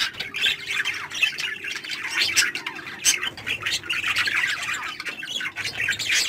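Flock of budgerigars chattering and squawking, a dense stream of many short overlapping calls.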